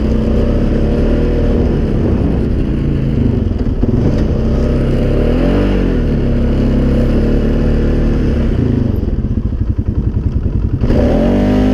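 Polaris Sportsman 570 ATV's single-cylinder engine, fitted with an EPI clutch kit, revving up and down as the rider gets on and off the throttle. Near the end it drops to a low, uneven idle for a second or two, then revs up again.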